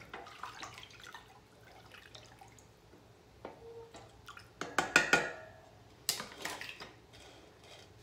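Wooden spoon stirring pickling brine in a stainless steel saucepan: the liquid swirling, with light clinks and scrapes of the spoon against the pot. The loudest knocks come about five seconds in, and a few more follow a second later.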